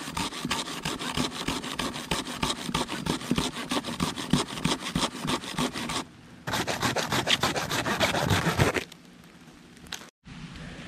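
Hand saw cutting through a dead tree branch in fast, rhythmic back-and-forth strokes. The sawing pauses briefly about six seconds in, goes on again for a few seconds, then stops.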